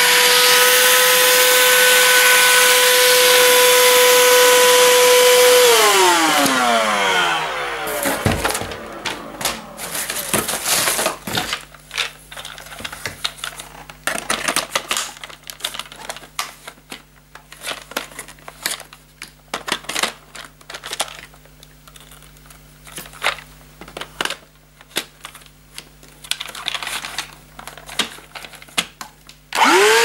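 Russell Hobbs Turbo Lite Ultra 22.2 V cordless handheld vacuum running with a steady whine, switched off about five seconds in and winding down in a falling whine. Then plastic clicks and knocks as the vacuum and its floor head are handled and fitted together, and the motor starting up again with a rising whine at the very end.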